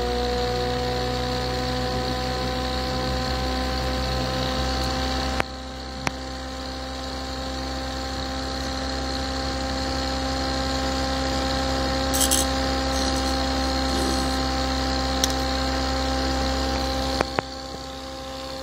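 Bedini-style self-pulsing pulse motor running, its spinning rotor giving a steady electric hum and whine that rises slowly in pitch. A few short clicks, about five seconds in and near the end.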